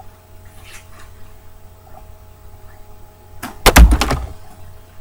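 Quiet room hiss, then a sudden cluster of loud knocks and a thump about three and a half seconds in, lasting about half a second.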